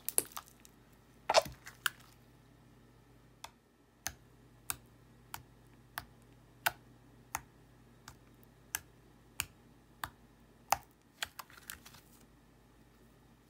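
Pink glitter slime being squeezed and poked with a finger, giving sharp clicking pops. After a few louder pops early on, the pops settle into an even run of about three every two seconds.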